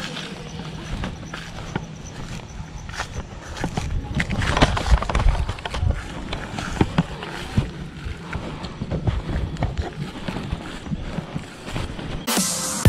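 Footsteps through long grass with rustling and irregular handling knocks as a small FPV quadcopter is carried by hand, heard through its onboard action camera.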